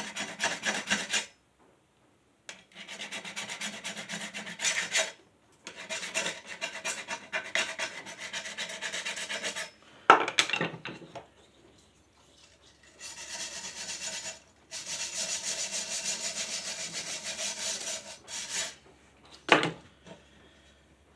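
Brush scrubbing a steel lawn mower blade in spells of rapid back-and-forth strokes, cleaning rust and caked grass off before balancing and sharpening. A sharp knock about ten seconds in and another near the end.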